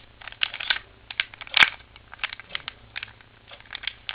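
A 3x3x3 Rubik's Cube's plastic layers being turned by hand: an irregular run of quick clicks and clacks, with one louder clack about a second and a half in.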